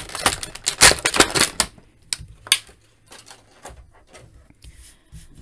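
Clear plastic blister tray crackling and clicking as hands handle it and work the action figure free. The crackling is dense for the first second and a half, then turns into a few scattered clicks and taps.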